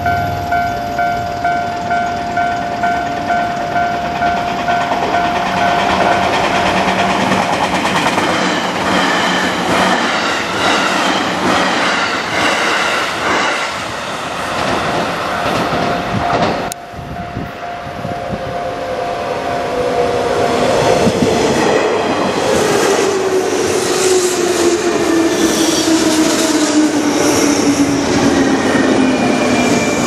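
Japanese level-crossing alarm bell dinging about twice a second, with rhythmic wheel clatter of a passing train. After a break, a green JR West 201 series commuter train approaches and runs over the crossing with clattering wheels, its motor whine falling steadily in pitch as it slows.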